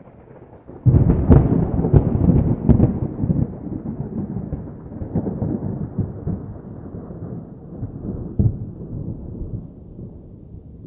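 Thunder: a sudden loud clap about a second in, with a few sharp cracks over the next two seconds, then a long rolling rumble that slowly fades, with one more jolt near the end.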